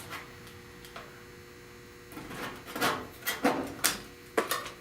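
A faint steady hum. About two seconds in, a run of short scrapes and knocks begins: hand work on the car's body panel where paint stripper has softened the paint and filler.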